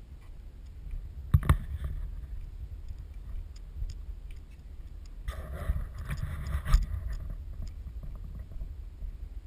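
Handling noise on a GoPro mounted on a ski pole being carried along: a steady low rumble, with a pair of sharp knocks about a second and a half in and a rough, scraping stretch from about five seconds that ends in another sharp knock.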